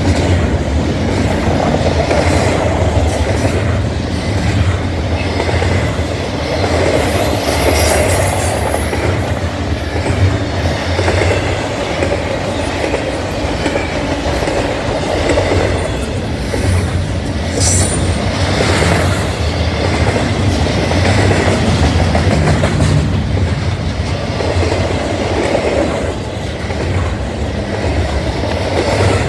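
Double-stack container freight train's well cars rolling past close by: a steady loud rumble with the rhythmic clickety-clack of wheels over rail joints. A brief high wheel squeal comes about two-thirds of the way through.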